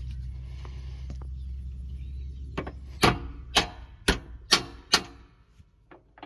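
Steel hammer driving a tapered roll pin into a quick hitch adapter bushing on a tractor hitch pin. About six sharp metal-on-metal blows, roughly two a second, start a little over two seconds in, over a low steady rumble that dies away near the end.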